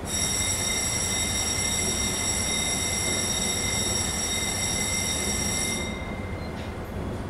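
A high-pitched ringing tone that holds steady for about six seconds and then cuts off abruptly, over a low steady hum.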